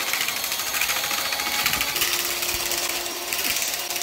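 Electric hand mixer with a wire whisk attachment running steadily, whipping heavy cream into whipped cream.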